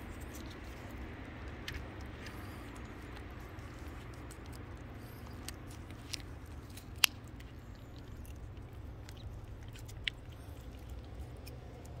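Cats eating, with small wet chewing and licking clicks scattered throughout over a low steady hum. A sharper click comes about seven seconds in and a smaller one near ten seconds.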